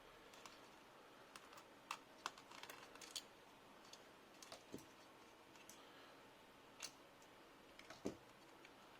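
Scattered small clicks and taps of a screwdriver and loosened parts on the plastic chassis of an HP Omen laptop as its screws and cooling fan are removed. The clicks are irregular, a dozen or so, with two duller knocks a little before the middle and near the end.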